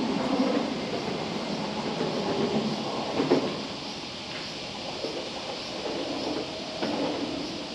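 Train running on the tracks at a station: a steady rumble with a few sharp knocks.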